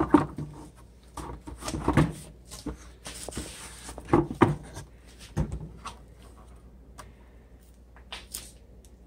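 Knocks and scrapes of a 3D-printed plastic armor chest piece being handled and set against the midsection on a workbench. There are several sharp knocks in the first five and a half seconds, with rustling between, and only light ticks after that.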